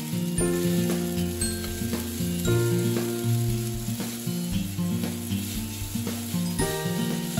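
Yakisoba noodles sizzling in a hot frying pan as they are stirred and loosened with chopsticks, once the water has cooked off. A melody of pitched notes plays over it.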